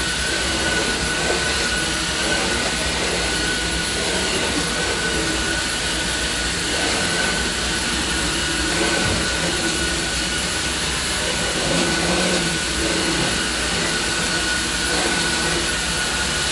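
Samsung cordless stick vacuum running steadily as it is pushed over carpet: a steady high motor whine over a rush of air.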